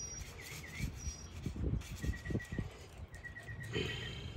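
A small bird chirping in quick runs of short, even notes, three runs in a few seconds, over low uneven thumping and rustle.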